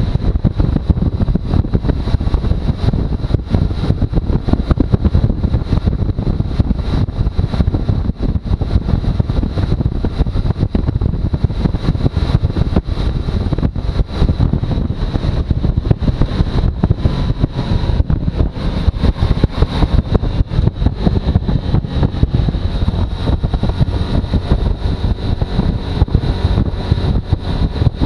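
Suzuki V-Strom motorcycle running, heard as a steady low rumble broken up by heavy, constant wind buffeting on the microphone.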